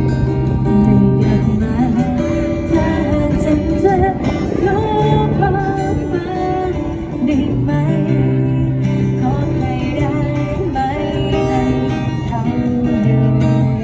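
Live band music: an instrumental passage led by guitar over a steady bass line.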